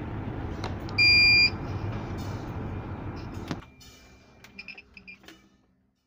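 A small 5 V buzzer wired into a water-overflow alarm in place of its dead IC gives one loud, steady, high-pitched beep of about half a second, about a second in. A low hum runs under it and stops about three and a half seconds in, and a few faint short beeps follow near the end.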